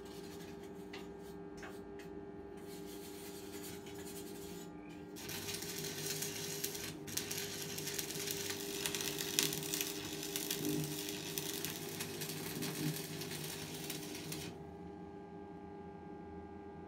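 Stick (arc) welder laying a weld on steel: a dense, steady crackle and sizzle of the arc starts about five seconds in and stops sharply about nine seconds later. Before the arc strikes there are a few light scrapes and clicks, and a low steady hum runs underneath.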